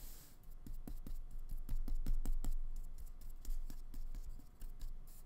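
Flat paintbrush dabbing and scrubbing acrylic paint onto paper, a run of irregular light ticks and scratches from the bristles over a low rumble.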